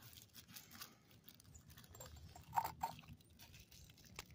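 Thin plastic bag crinkling and crackling as hands work it over a glass jar's mouth and twist the lid down on top, with a run of small clicks and two louder crackles a little over halfway through.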